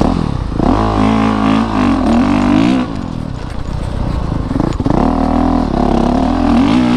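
Honda CRF450RX dirt bike's 450cc single-cylinder four-stroke engine accelerating under throttle, heard up close from the bike. It revs up about half a second in, eases off near three seconds, and revs up again around five seconds.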